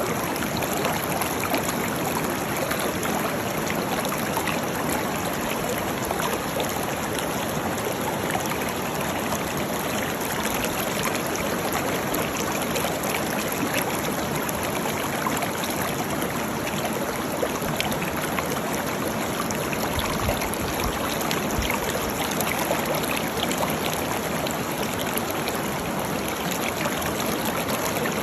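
Waterfall: a steady rush of falling water that does not change in level.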